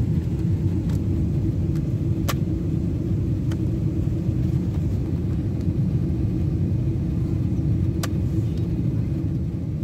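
Steady low drone of a Boeing 747 cabin, with two sharp plastic clicks about six seconds apart as an economy seatback tray table is unlatched, lowered and slid.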